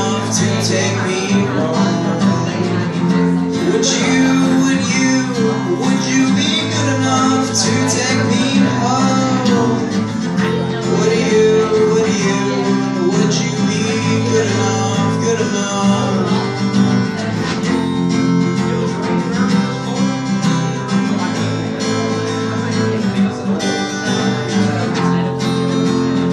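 Live acoustic guitar being strummed steadily in an instrumental passage of a song.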